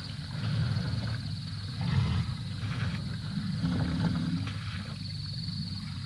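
African elephants of a breeding herd giving low rumbles, with one held, pitched rumble about four seconds in. A steady high trill runs underneath.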